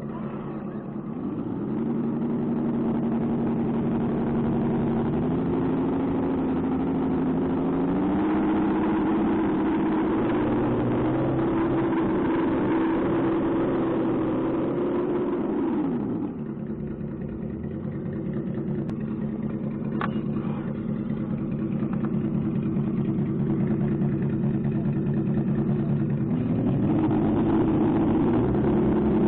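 Engine sound running steadily, its pitch stepping up over the first half, dropping to a lower steady note about 16 seconds in, then rising again near the end.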